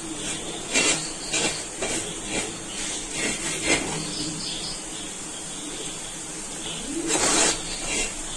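Spoon stirring chicken curry masala in a cooking pot: a series of short scrapes and clinks against the pot, with a longer scrape near the end.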